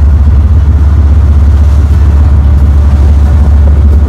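Small fishing boat running fast across a choppy sea: a loud, steady low rumble of engine, rushing water and wind.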